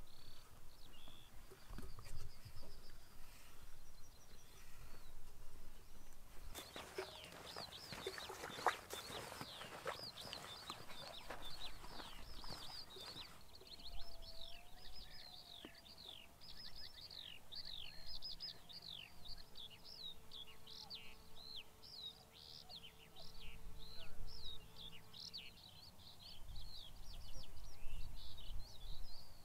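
Small birds singing over fields: a steady stream of quick, high chirps, each note falling in pitch, fills the second half. Before it there is a crackling rustle, and near the end a low rumble.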